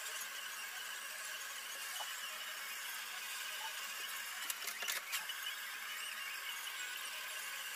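Handheld butane torch on a gas canister, burning with a steady hiss as its flame chars the face of a wooden board. A few quick clicks or knocks come about four and a half to five seconds in.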